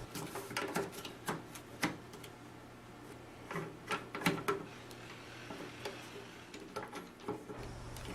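Irregular light clicks and knocks of a hand grip accessory being handled and fitted onto a paintball marker's shroud rail, over a faint steady hum.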